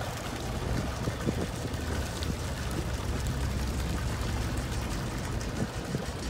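A boat's engine runs with a steady low drone, with water splashing and rushing past the hull.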